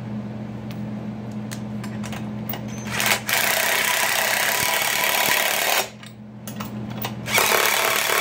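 DeWalt cordless impact driver running nuts down onto bracket bolts, in two loud rattling bursts: one starting about three seconds in and lasting a couple of seconds, and another starting again near the end.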